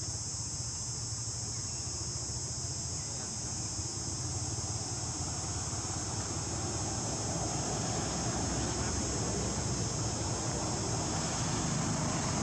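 Steady high-pitched drone of insects in the forest, with a low rumble of outdoor background noise underneath that grows a little louder in the second half.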